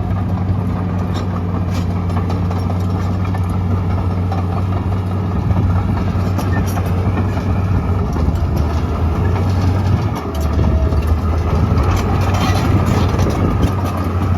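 Komatsu D41P-6 bulldozer's diesel engine running steadily with its steel tracks clanking and rattling while it works, pushing dirt. The engine dips briefly about ten seconds in, then picks back up.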